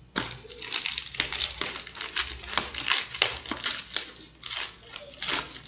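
White foam packing wrap crinkling and crackling as hands unroll and handle it around a small parcel, in dense, irregular crackles.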